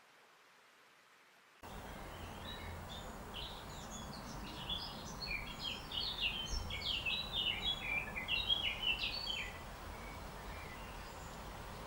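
A songbird singing a rapid, jumbled song of many short high notes that jump up and down in pitch, over a steady background hiss. It starts about a second and a half in, after near silence, and dies away about two seconds before the end.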